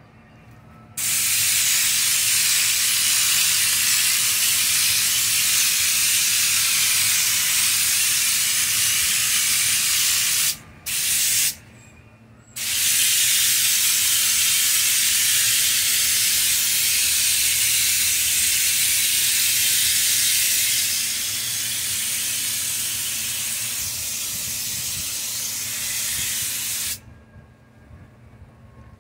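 Air-powered bed liner spray gun spraying Raptor bed liner, laying down a light, sticky first texture coat: a loud, steady hiss of air and liner. It starts about a second in, stops briefly twice around the middle, runs again a little quieter for its last stretch, and cuts off near the end.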